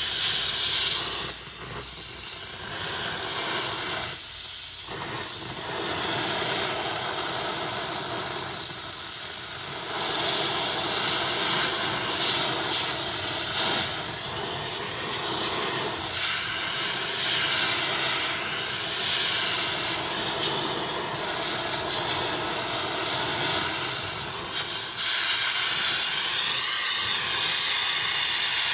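Oxy-acetylene torch with a brazing tip burning with a steady hissing flame, heating a cast iron manifold and burning off its soot. It gets quieter about a second in, then runs on evenly.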